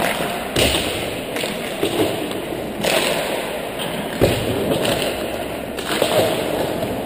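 Hockey skate blades scraping the rink ice in repeated strides, heard as short bursts of hiss, with a few sharp knocks on the ice; the loudest knock comes about four seconds in.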